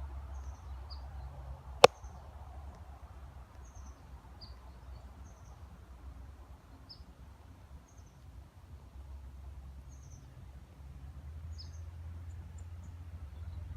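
A small bird chirping, short high calls repeated every second or two, over a low steady rumble. A single sharp click about two seconds in.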